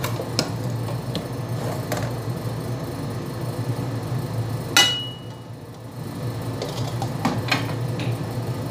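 Spoon clinking and scraping against aluminium cooking pots as cooked rice is transferred from one pot into another, with a handful of sharp knocks. The loudest knock, about five seconds in, leaves a short metallic ring. A steady low hum runs underneath.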